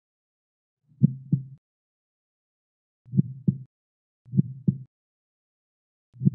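Heartbeat sound effect: low double thumps in a lub-dub rhythm, four of them at uneven gaps of roughly one to two seconds.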